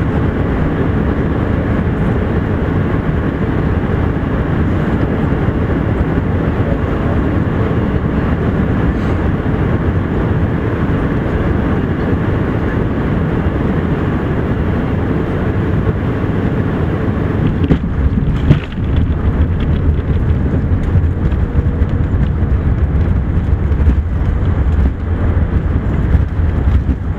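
Airbus A380-800 cabin noise on final approach: a steady rush of airflow and engines. About eighteen seconds in there is a short jolt as the wheels touch down, and the sound turns into a deeper, bumpy rumble of the aircraft rolling along the runway.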